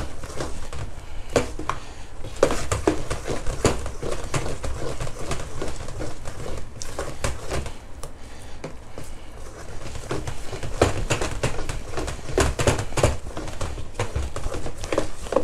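Metal spoon stirring thick frying batter by hand in a stainless steel bowl, with irregular clicks and scrapes as the spoon hits and drags along the bowl.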